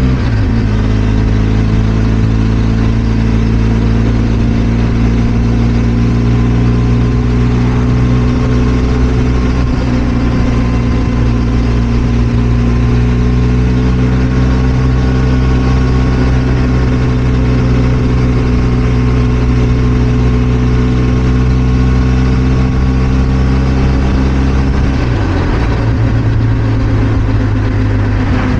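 Benelli TRK 502 X motorcycle's 500 cc parallel-twin engine running at a steady, even pitch while riding, its note briefly dipping and changing near the end.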